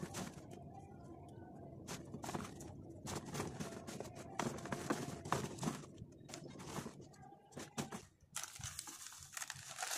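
Hands mixing soil and cow-dung manure inside a fabric grow bag: irregular scratchy rustling and crunching. In the last couple of seconds a plastic bag crinkles as it is picked up and handled.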